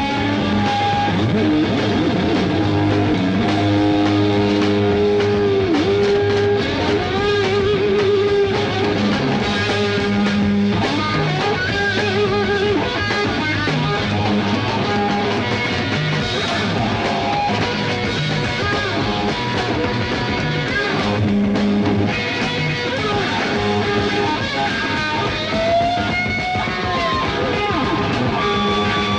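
Rock music with lead electric guitar and no singing; the guitar plays wavering, bent notes over bass and drums.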